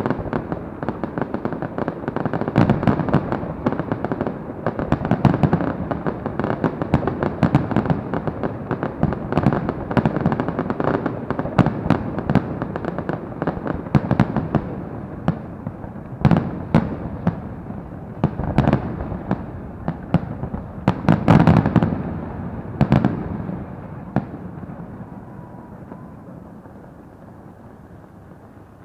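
Fireworks going off in a dense, continuous barrage of bangs and crackling. They thin to a few separate big bursts, the loudest a little past the middle, then the rumble and echoes die away toward the end.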